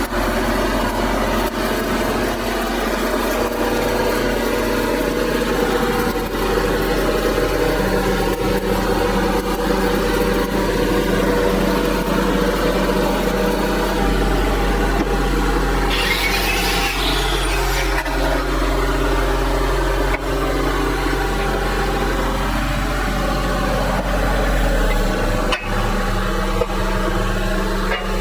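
An engine running steadily, its pitch stepping up and down a few times, with a short hiss about 16 seconds in.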